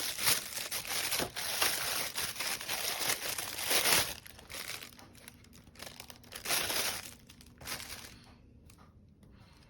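Crinkling and rustling, like something being handled, dense for the first four seconds, then thinning to a short burst and a few scattered rustles.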